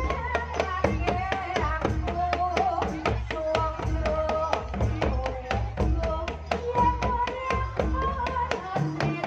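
Live jaranan gamelan music: kendang drumming and struck percussion in a fast, steady beat under a wavering melody line.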